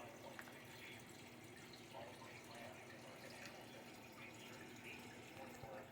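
Near silence: faint background hiss with a low steady hum and scattered faint indistinct sounds.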